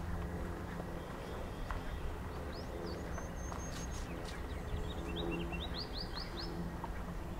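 Small songbirds chirping: a few quick rising notes, a thin high whistle about halfway, then a short run of rapid chirps near the end, over a steady low outdoor rumble.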